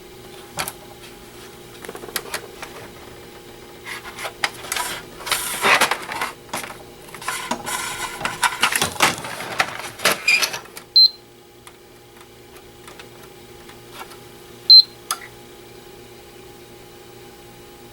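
Clicks, clatter and rustling as the PlayStation 4 is handled and its power is connected. Once the handling stops, two short high beeps come a few seconds apart, the second louder, from the console as its power button is pressed. A faint steady hum runs underneath.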